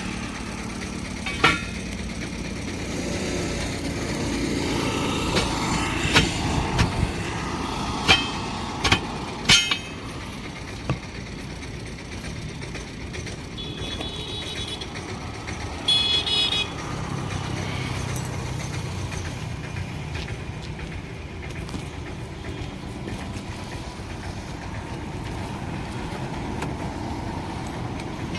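Road traffic with two short vehicle-horn toots about halfway through. Several sharp knocks, from work on a truck wheel rim, come in the first third.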